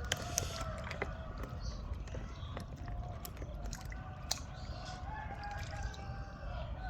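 A rooster crowing, with scattered sharp clicks and a steady low rumble under it.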